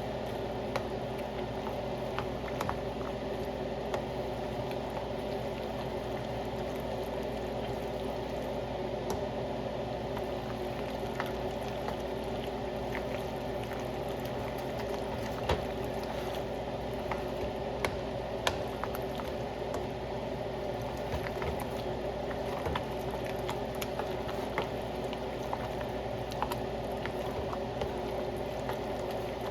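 Flour-coated meat frying in hot oil: a steady sizzle with many scattered crackles and pops.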